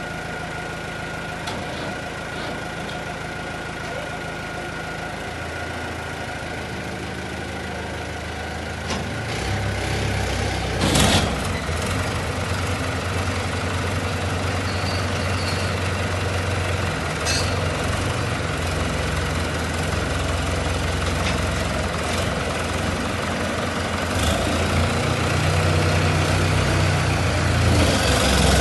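Two diesel tractor engines, a New Holland and an old Ford 5630, running and revving harder as they pull against each other on a chain in a tractor tug-of-war. The engine note steps up twice in the first ten seconds. There is a short loud noise about eleven seconds in, and the engines grow louder near the end as the pull comes under load.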